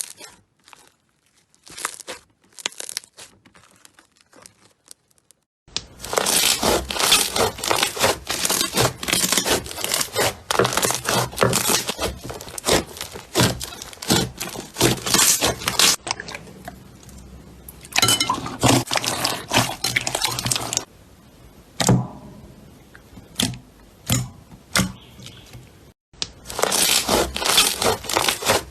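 Slime being squeezed and worked by hand, giving dense crackling and popping. It starts as a few faint pops, turns into a loud, busy crackle about six seconds in, thins to scattered pops, then grows dense again near the end.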